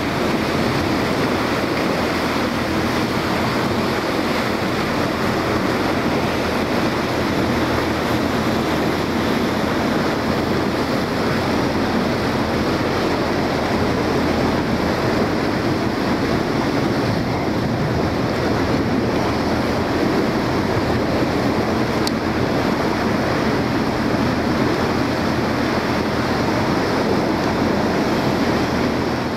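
Motorboat under way: the engine drones steadily, with water rushing along the hull and wind on the microphone.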